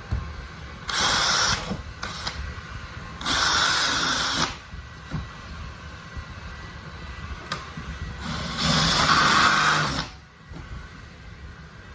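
Power drill run in three short bursts of about a second each, drilling holes to mount an oven outlet.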